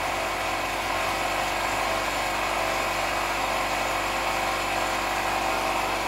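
Airbrush air compressor running steadily, a continuous motor drone with hiss, together with a heat gun blowing to heat-set the freshly sprayed paint.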